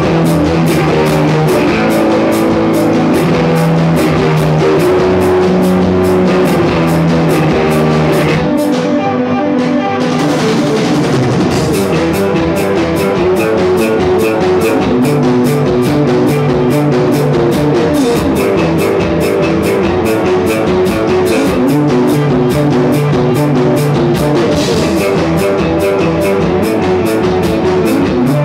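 Rock music with guitar and a drum kit playing at a steady loud level. The drums drop out for a couple of seconds about nine seconds in, then come back in.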